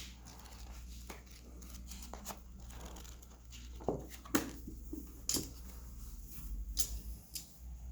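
A book and its packaging being handled: scattered rustles and light clicks and taps, the sharpest ones about four to five and a half seconds in and again near seven seconds.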